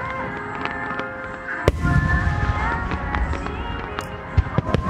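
Aerial firework shells bursting over music: one big boom about a second and a half in, trailing off in a low rumble, and a few sharper bangs near the end.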